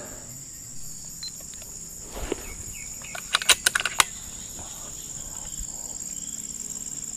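Steady high-pitched chorus of forest insects, with a few sharp clicks about three and a half to four seconds in.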